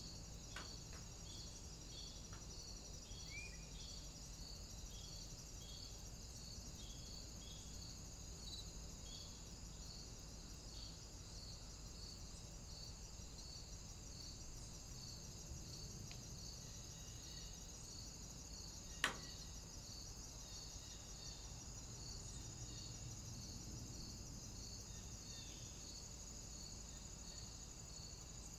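Faint steady high hiss with an even, pulsing high tick a little more than once a second, typical of a cheap trail camera's own recording noise. One sharp click about 19 seconds in.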